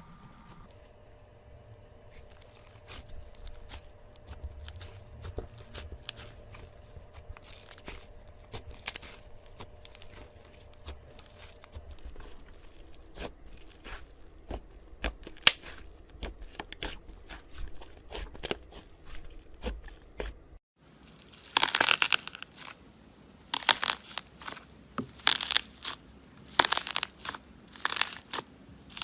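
Slime being worked by hand: a steady run of small clicks and crackles, then after an abrupt cut, louder bursts of crackling about once a second.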